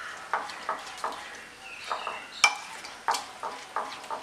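A metal spoon stirring thin egg-and-flour batter in a ceramic bowl, in quick strokes about three a second, with a sharper clink of the spoon on the bowl about two and a half seconds in.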